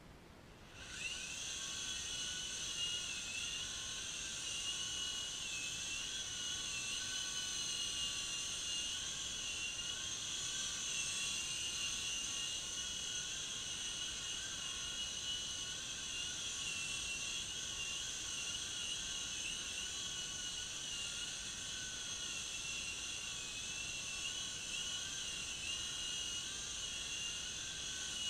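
Small electric U13A remote-control helicopter's motor and rotors whining steadily after spinning up about a second in, the high pitch wavering slightly.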